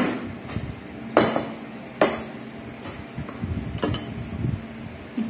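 Ceramic dishes and serving utensils clinking and knocking against each other and the table as food is served: about six sharp knocks, the loudest about a second and two seconds in.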